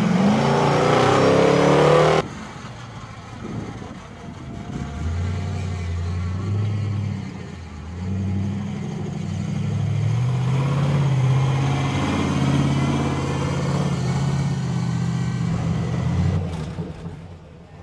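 Monster truck engine revving hard and rising in pitch, cutting off suddenly about two seconds in. It then runs as the truck drives over dirt, its pitch rising and falling, and fades near the end.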